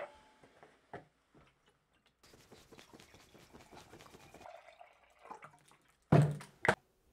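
Juice poured from a large jug into a stemless glass: a steady splashing pour lasting about two seconds. A little later there is a heavy thump, then a sharp knock, as the jug is set down on the stone countertop.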